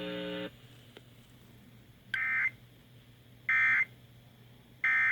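EAS end-of-message data bursts: three short identical screeching digital bursts about 1.4 s apart, signalling the end of the tornado warning alert. A steady buzzing tone cuts off about half a second before them.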